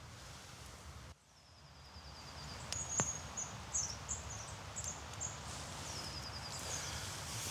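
A flock of long-tailed tits calling: repeated very high, thin call notes, including short falling runs and brief chirps. There is one sharp click about three seconds in.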